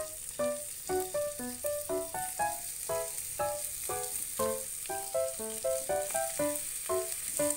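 Food sizzling as it fries in a pan: a steady, hissing sizzle under background music of short, quick plucked notes.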